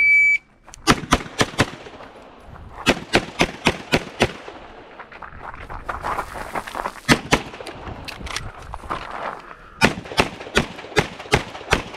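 A shot timer's short start beep, then several fast strings of pistol shots at steel and cardboard targets in an IPSC practical-shooting stage. The strings are broken by brief pauses as the shooter moves between shooting positions.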